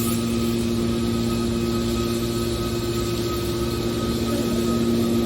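Metal baler machine running with a steady hum and no change in pitch or level.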